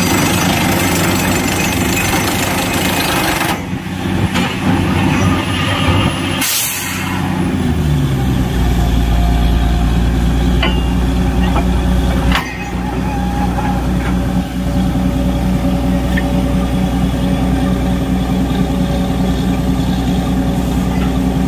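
Borewell drilling machine: the rough drilling noise stops a few seconds in, a short blast of compressed air hisses out about six seconds in, then the engine slows and settles into a steady low run, with one knock about twelve seconds in.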